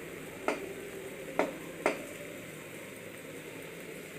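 A spatula knocking and scraping against a kadhai three times in quick succession while stirring egg bhurji, over a faint steady sizzle of the eggs frying.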